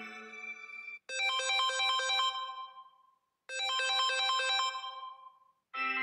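A Samsung Galaxy S23 FE ringtone preview: a short melodic phrase of quick notes, played twice with a brief pause between. The tail of the previous ringtone fades out at the start, and a different ringtone begins near the end.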